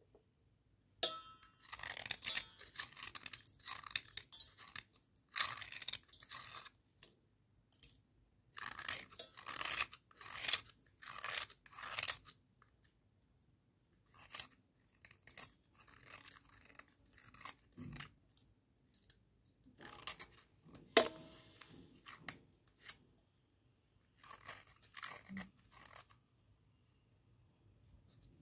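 A wet cubical slate pencil scraped and cut with a small metal blade: irregular gritty crunching scrapes that come in short bursts with brief pauses between them.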